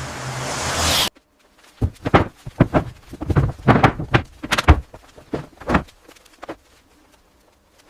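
A rising whoosh that cuts off abruptly about a second in, then a string of irregular knocks and thuds over the next five seconds, fading out near the end.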